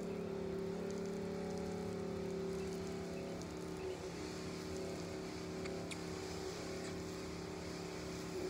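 A four-season-old 12-volt soft wash pump running with a steady hum while the spray gun is held open, its water spraying out in a long stream.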